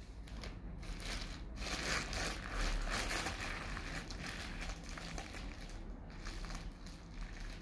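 Irregular rustling and crackling handling noise as a hand moves over and around a phone lying on a fabric cover, with a low steady hum underneath.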